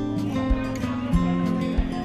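Background music with guitar and a steady beat of about two beats a second.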